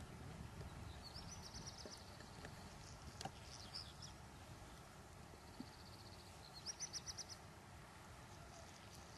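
Faint bird song: a few short high phrases of quick trilled notes, the loudest near the end, over a low steady background rumble.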